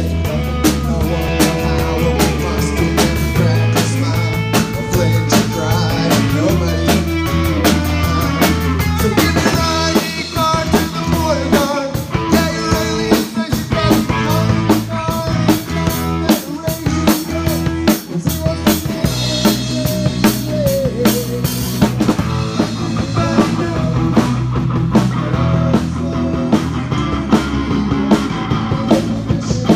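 A rock band playing live: a drum kit keeping a busy beat, with electric guitar and bass guitar.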